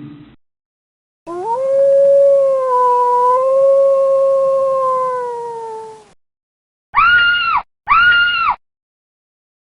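A long canine howl lasting about five seconds, sliding up at the start, holding, then sagging and fading, followed by two short, higher-pitched calls about a second apart.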